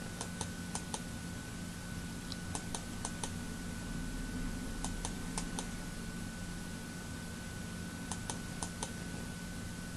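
Light computer clicks in four small clusters of two to five, over a steady faint electrical hum: the clicks of stepping a paused video on and off.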